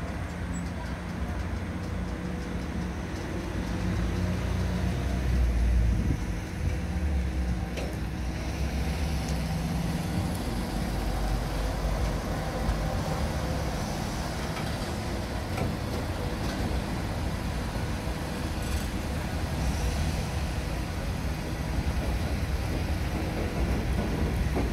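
Freight train of open-top coal wagons rolling past close by: a steady low rumble of wheels and running gear on the rails, swelling and easing a little as the wagons go by.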